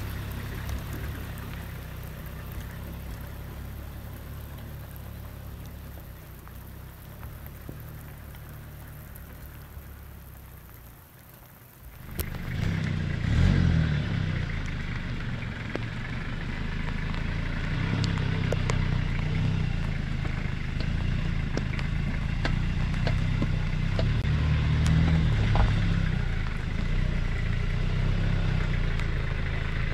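Toyota Hilux LN109 diesel engine running under load as the pickup crawls over rough, rocky ground, with scattered clicks of stones under the tyres. The engine sound sinks lower over the first dozen seconds, then jumps louder about twelve seconds in and stays steady.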